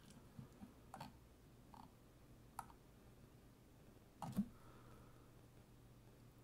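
A handful of faint, separate clicks and taps about a second apart, the loudest a double tap about four seconds in, over a low steady hum of room tone.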